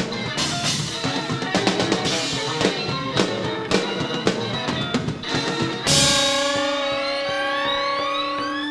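Live rock band playing an instrumental passage with busy, rapid drumming. About six seconds in, a loud crash leads into a held chord, over which rising, sliding tones climb to the end.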